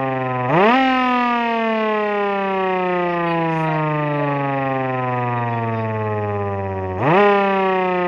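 MS-590 electric motor-driven siren growling. Twice, about half a second in and again near the end, its pitch winds up sharply, and each time it then winds down slowly over several seconds.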